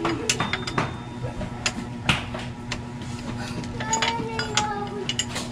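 Steel wrench clinking and tapping irregularly against a bolt and the metal engine casing as a bolt on the underside of a scooter's engine is tightened during an oil change.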